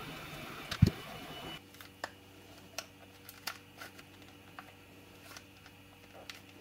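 Heat gun blowing hot air onto a plastic battery-pack housing to soften it, a steady rushing with a faint whine that stops about a second and a half in, just after a single thump. Then small scattered clicks and taps of a plastic pry tool working at the housing's snap clips.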